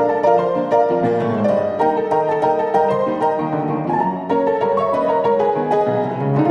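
Background music: piano with bowed strings, a calm instrumental piece with notes struck several times a second.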